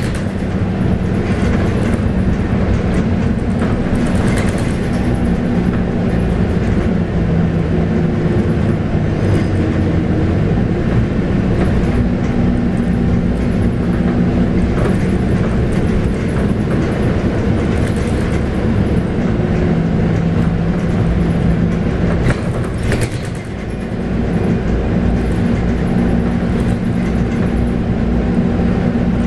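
Scania K280UB bus under way, heard on board: its 9.3-litre five-cylinder Scania DC9 diesel runs with a steady drone over road noise, and the engine note shifts in pitch. The sound dips briefly about three-quarters of the way through.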